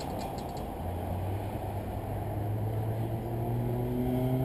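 2011 Ford Fiesta's 1.6-litre four-cylinder engine accelerating, heard from a distance. Its note comes in about a second in and rises slowly in pitch while growing louder, over a steady low rush of background noise.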